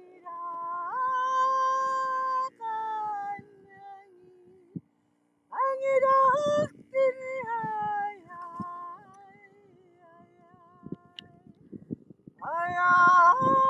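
Wordless singing in a high voice: long held notes at a few pitches, stepping and gliding between them, in phrases broken by pauses. The singing is loudest near the end.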